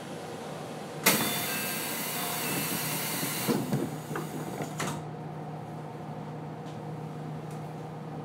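JR Central 373 series train doors closing: a loud hiss of air starts about a second in, and thumps follow as the doors shut about four to five seconds in. A steady low hum from the train follows.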